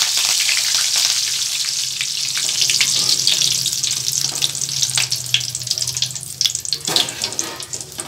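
Fresh curry leaves frying in hot oil, held in a wire-mesh frying spoon: loud sizzling with sharp crackles that fades over the last couple of seconds.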